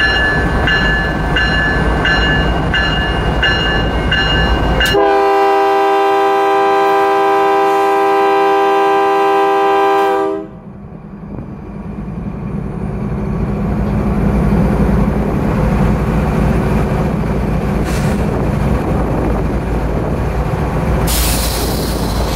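Driverless diesel freight locomotive departing: its bell rings over and over, then the horn sounds one long blast of about five seconds, and after it cuts off the diesel engine's note rises as the loco throttles up and starts to roll.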